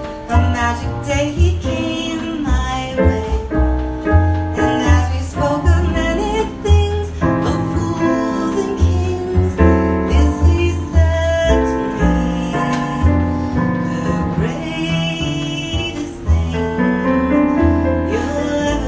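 Live jazz music: keyboard chords over a strong bass line, with a female voice singing at times.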